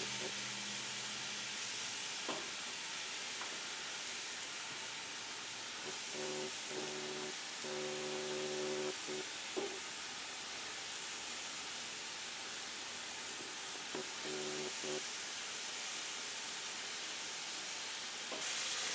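Chopped cabbage sizzling steadily in a pot with onions and garlic as it starts to cook down. A few short, faint steady tones come and go around the middle and again later, with a couple of light clicks.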